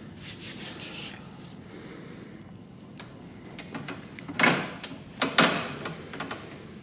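Door window glass being slid up by hand in its rubber run channel, scraping and rubbing: a brief scrape in the first second, then two louder scrapes around four and a half and five and a half seconds in.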